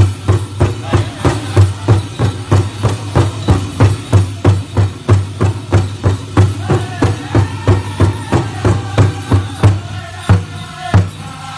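Powwow drum group beating a big drum together in a steady beat, about three strokes a second, and singing a chicken dance song. The singing stands out more in the second half.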